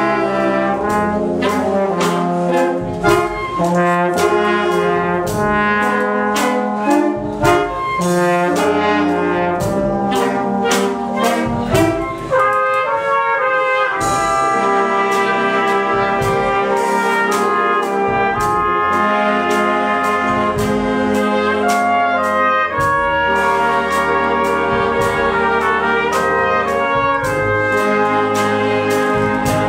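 A wind band plays: trumpets and saxophones over low brass, with percussion marking a regular beat. About halfway through a cymbal crash rings out, and held chords follow.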